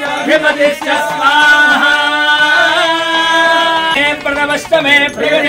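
Male voices chanting Sanskrit mantras at a fire offering. A long held note starts about a second in and breaks off about four seconds in, followed by quicker chanting.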